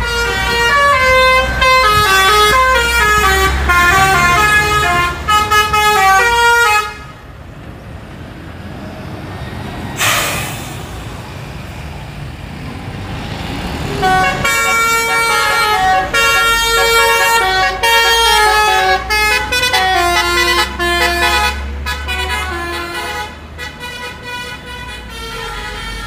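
Telolet basuri multi-note air horn on a passing truck playing a quick tune of stepped notes, over the rumble of the engine. The tune plays twice with a pause of several seconds between, and there is a short burst of hiss about ten seconds in.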